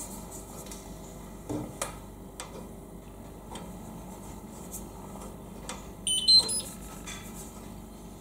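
Indesit DIE 2B19 dishwasher powering on for the first time: a quick run of short electronic beeps stepping in pitch about six seconds in, after a few soft clicks over a steady low hum.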